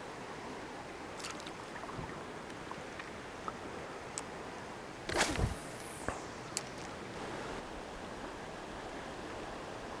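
Steady rush of stream water, with a few small clicks. About five seconds in, a fishing rod swishes through a cast, a quick whoosh falling in pitch, followed by two sharp clicks.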